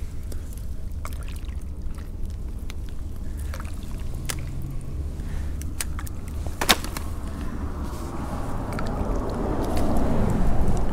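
Scattered light clicks and knocks from handling a landing net and a freshly caught crappie, over a steady low rumble, with one loud sharp click about two-thirds of the way in. Near the end a rushing noise swells and then fades.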